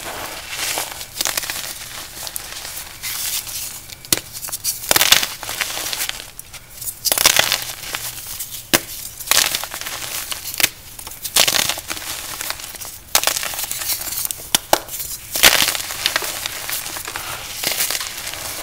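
Soft, powdery blocks of cornstarch or gym chalk being crushed, an uneven run of crisp crunches and crackles with several louder crunches scattered throughout.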